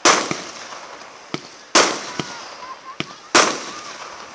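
Aerial firework shells bursting: three loud bangs about a second and a half apart, each trailing off in a long echoing decay, with smaller sharp pops in between.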